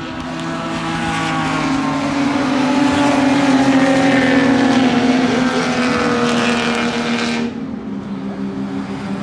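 Racing sports car's engine going by on the track. It grows louder to a peak about four seconds in while its pitch slides slowly down, then turns suddenly duller near the end.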